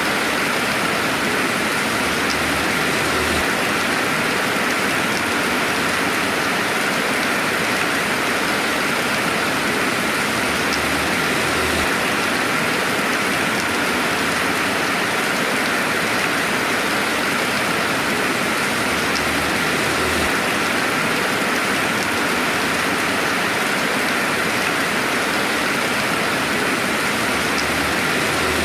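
Steady rainfall, an even hiss of many drops without a break, with no thunder.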